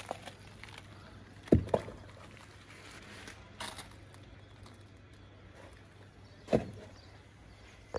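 A few scattered sharp knocks over a faint steady low hum: a close pair about one and a half seconds in, a lighter one midway and another loud one near the end.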